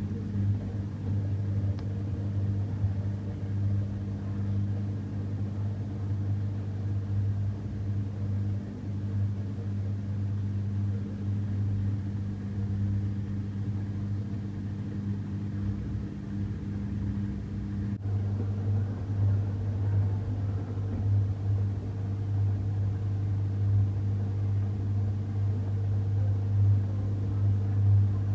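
Samsung washing machine running with a steady low hum, which breaks off briefly about two-thirds of the way through and then resumes, pulsing slightly louder near the end.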